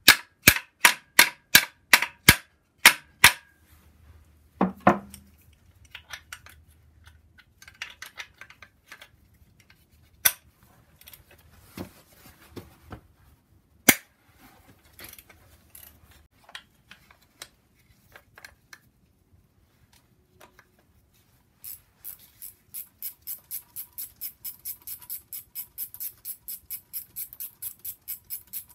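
Hand ratchet wrench clicking in quick, even strokes on the engine's bolts. It clicks at the start, then comes scattered tool handling, then a longer run of about three or four clicks a second over the last seven seconds.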